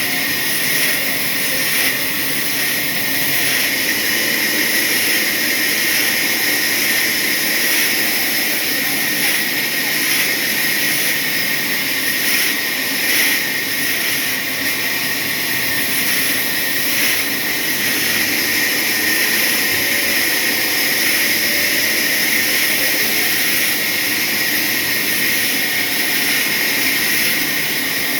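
Sawmill saw blade cutting through a hardwood log: a steady, loud, high-pitched whine and hiss of the blade in the wood, swelling briefly a few times.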